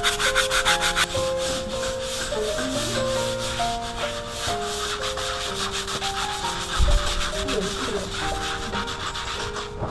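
Stiff plastic hand brushes scrubbing mold off wet, soapy concrete, a rapid run of rasping strokes, with background music.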